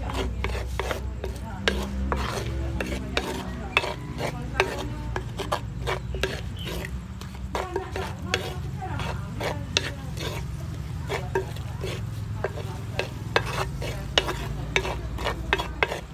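A wooden spatula tossing and mixing rojak in a clay mortar, scraping and knocking against the earthenware bowl in quick, irregular clicks, over a low steady hum.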